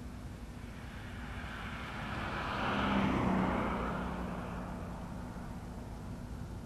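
A vehicle passing by, its sound swelling to a peak about three seconds in and then fading away.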